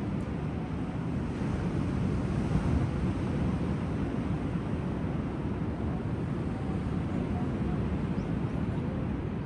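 Surf washing on a sandy beach, mixed with wind buffeting the microphone: a steady low rush with no distinct wave breaks.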